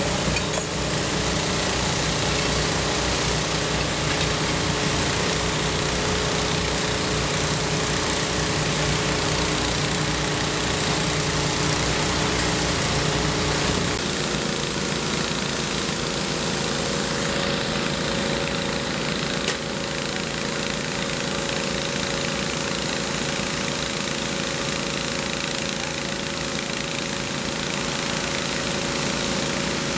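Engine-driven salvage pumps running steadily, dewatering the sunken fishing boat's flooded hold. About halfway through, the low rumble drops away and a different steady engine tone carries on.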